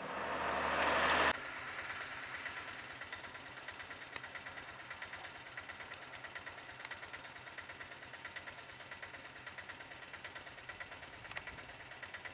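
A minibus engine grows louder as the bus passes close by and is cut off about a second in. After that a small engine idles with a rapid, even chugging beat, about six beats a second.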